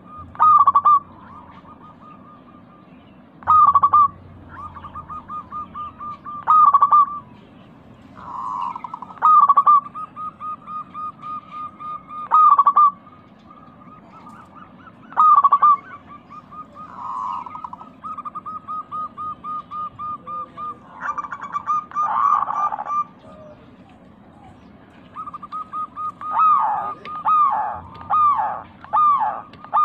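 Zebra dove (local perkutut) cooing: runs of rapid short notes, each closed by a louder, drawn-out note, about every three seconds. Near the end the notes come faster and louder and overlap.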